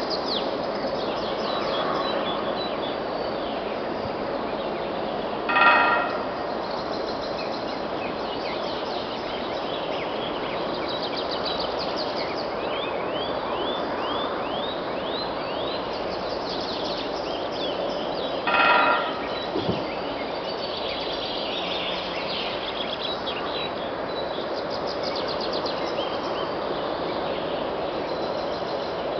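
A woodpecker drumming on a steel angle bracket: two short, ringing drum rolls on the metal, about six and nineteen seconds in. Small birds chirp and sing throughout.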